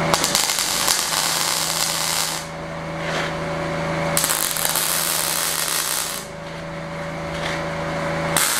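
Arc welder tack-welding steel legs onto a steel frame: the crackling hiss of the arc comes in three stretches, each about two seconds, split by short pauses. A steady hum runs underneath.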